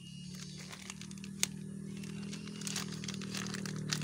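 Light crinkling and scattered small clicks from handling scooter CVT parts, over a steady low mechanical hum that grows a little louder near the end.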